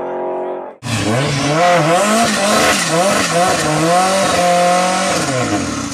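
A car engine's steady drone cuts off just under a second in. A turbocharged Honda Civic's engine then revs up and down over and over with a loud hiss over it, holds a steady pitch briefly, and falls away near the end.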